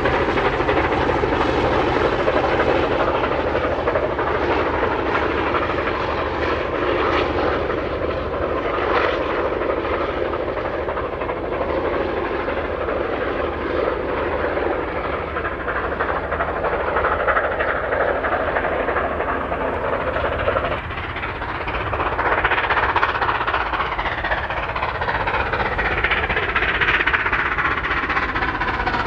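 Steam locomotive 3801, a NSW C38 class 4-6-2, working a passenger train with a steady heavy running sound. About two-thirds through the sound cuts suddenly to a new take as the locomotive comes nearer.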